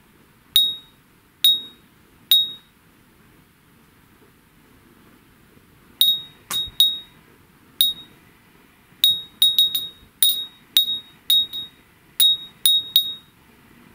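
Tsugaru vidro blown-glass furin (Japanese wind bell) ringing as its clapper strikes the glass: three clear high pings about a second apart, a pause of a few seconds, then a quicker, irregular run of pings. Each ring is bright and dies away quickly, the short sustain of its slim glass body.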